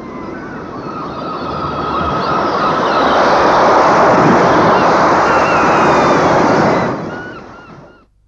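Waves rushing in a long swell that builds over a few seconds and then fades out near the end, with faint high whistling calls over the noise.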